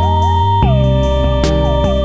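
Background music: a synthesizer lead that slides smoothly from note to note over a low bass line, with a sharp percussion hit about once a second.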